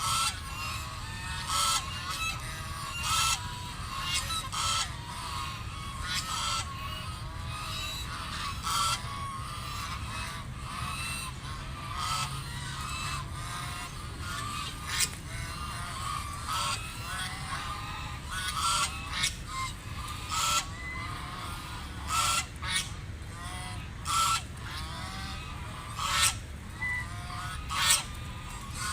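A flock of ducks quacking continually, with many short quacks overlapping and louder single quacks standing out every second or two, over a steady low rumble.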